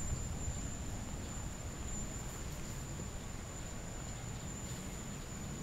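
Quiet outdoor ambience: a steady high-pitched insect drone over a low rumble and faint hiss.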